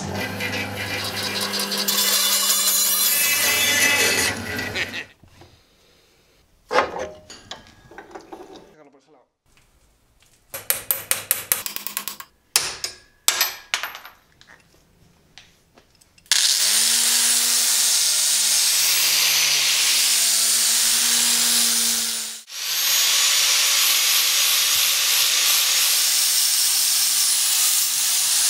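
A bandsaw runs for about five seconds, followed by a stretch of scattered knocks and short clanks. A little over halfway in, an angle grinder starts grinding the rusty steel head of a cross peen hammer clamped in a vise. It runs loud and steady with a wavering whine, dropping out briefly once before picking up again.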